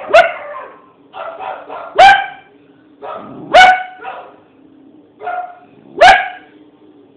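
A dog barking: four loud, sharp barks spaced about one and a half to two and a half seconds apart, with softer, shorter barks in between.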